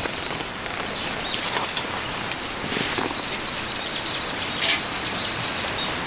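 Steady outdoor background hiss with birds chirping high and briefly now and then, and a few light clicks of chopsticks and dishes as people eat.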